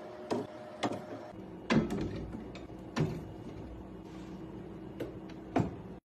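Slide-out wine racks of a dual-zone wine refrigerator being pulled out on their runners, giving a series of sharp clacks as each shelf moves and hits its stop, the loudest a little under two seconds in.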